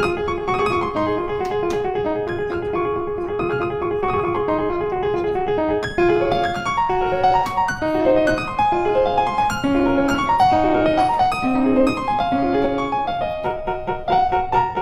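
Background piano music: a steady repeated figure of notes, turning to a livelier run of short notes about six seconds in.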